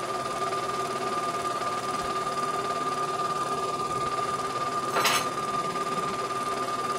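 CNY E900 computerized embroidery machine running a test stitch, its needle and moving hoop giving a steady mechanical hum with a high-pitched whine. A brief scratchy noise about five seconds in.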